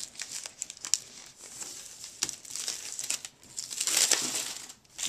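Clear plastic wrapping crinkling and tearing as it is pulled off a cloth hardcover book, in irregular crackles that are loudest about four seconds in.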